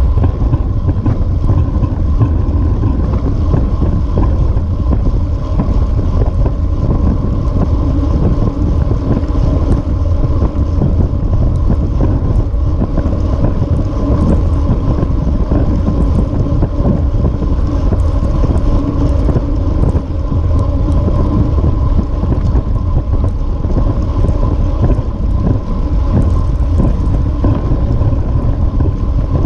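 Wind rushing over the microphone of a bike-mounted action camera at riding speed: a loud, steady rumble with a faint steady tone running through it.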